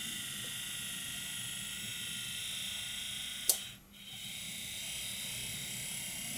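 HO scale Plymouth switcher's small electric motor and gear drive whining steadily as the battery-powered locomotive runs forward on the test track. About three and a half seconds in there is a sharp click and the whine stops briefly, then it starts again as the locomotive runs back in reverse.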